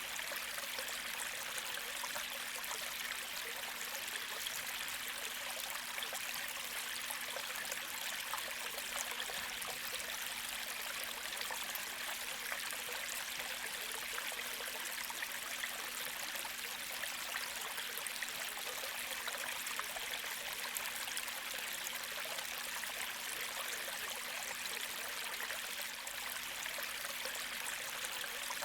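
Gentle creek flowing steadily, an even, unbroken rush of running water.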